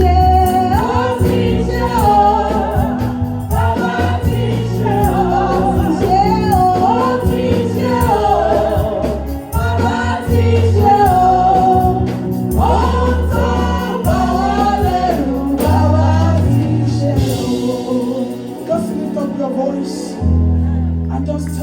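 Congregation and choir singing a gospel worship song over a band with a steady bass line.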